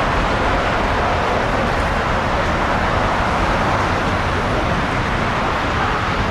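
Steady, even roar of distant jet airliner engines carrying across the airfield, with no breaks or distinct events.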